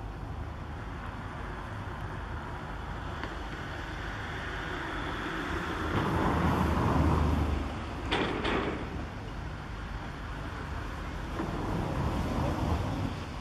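Steady low rumble of heavy machinery at work, swelling louder twice, with a couple of short sharp knocks a little past the middle.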